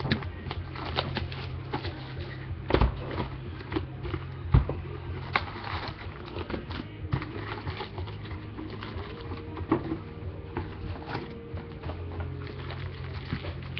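Cardboard card box being opened and foil-wrapped trading card packs pulled out and set down on a table: crinkling and irregular taps, over a steady low hum.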